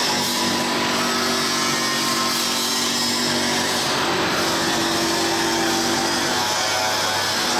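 Wanrooe PNMD-1400 blade sharpening machine's grinding head running against a straight steel crusher blade under coolant: a steady, loud grinding hiss over a steady motor hum.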